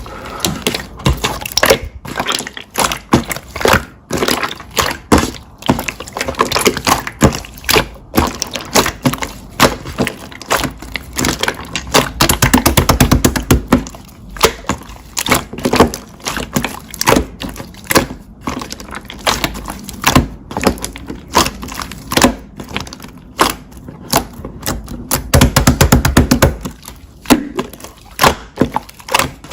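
Slime being squeezed, poked and stretched by hand, giving a continuous run of sharp popping and crackling clicks, denser and louder for a couple of seconds around the middle and again near the end.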